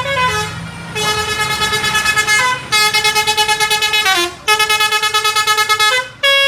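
Telolet bus horn playing its tune: pitched horn notes stepping up and down in repeated phrases about a second and a half long with brief gaps, each note pulsing rapidly.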